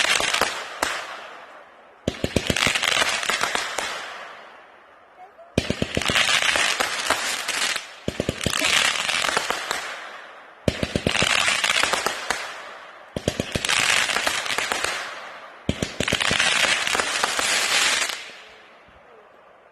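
Boomer Bang firework cake firing volleys of crackling mines. Every two to three seconds a rapid string of sharp launch reports is followed by a dense crackle that fades away. After seven volleys the crackle dies out near the end.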